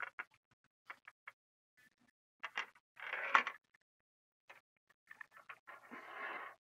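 Small ball rolling and clicking through the plastic tracks inside a clear maze-ball puzzle as the sphere is tilted. There are scattered light clicks and two short rattling rolls, one about three seconds in and one near the end.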